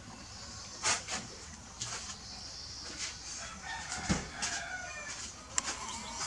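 Baby macaque scrambling over a wooden bench: a few knocks and bumps, a sharp one about a second in and a heavier thump about four seconds in, with faint calls behind.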